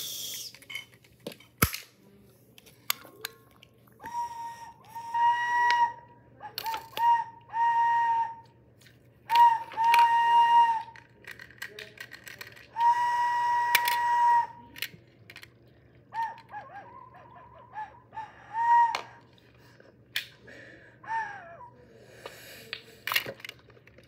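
Small plastic toy whistle blown in about ten separate toots, some short and some held for a second or more, each one steady tone that bends slightly as it starts and stops. Sharp clicks sound between the toots.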